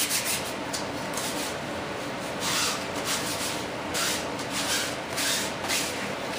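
Sandpaper rubbing by hand in slow, uneven strokes, a hiss that swells about five times.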